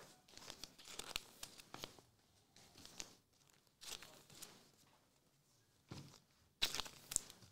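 Faint rustling and crinkling of trading cards and foil pack wrappers being handled, in short scattered bursts, with a louder burst of crinkling near the end.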